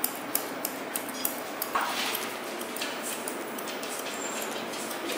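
Steel grooming scissors snipping through a poodle's curly coat: a run of quick, sharp clicks, a few a second.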